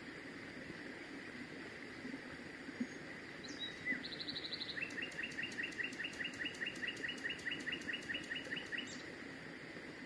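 Common nightingale singing one phrase: a short falling note and a brief high trill about three and a half seconds in, then a long, fast run of the same note repeated about five times a second for some four seconds.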